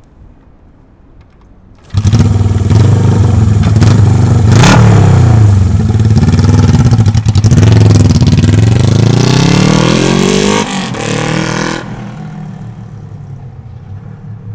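1977 Honda CJ250's air-cooled parallel-twin engine running on open headers with no silencers, coming in suddenly about two seconds in and being revved up and down several times. The level falls away sharply about ten seconds in and again a second later.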